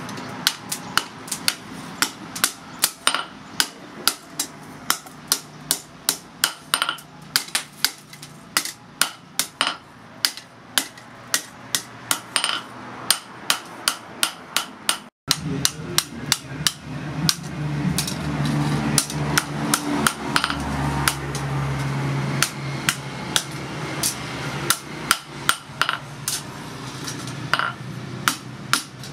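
Hand hammer striking red-hot steel from a motorcycle brake disc on a small steel post anvil: a steady run of sharp, ringing blows, about two to three a second.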